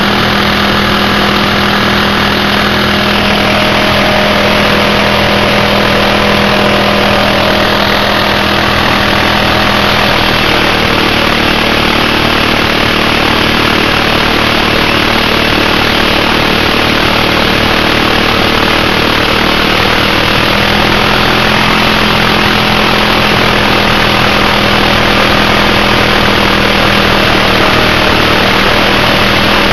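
Riding lawn tractor's engine running steadily under load while its rear tire spins in place against a cinder block, making a thick, steady hiss of scrubbing rubber. The engine tone barely changes pitch.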